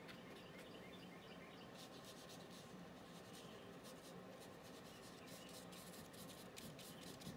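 Faint scratchy strokes of a paintbrush laying paint onto paper, in quick repeated dabs that come thicker from about two seconds in.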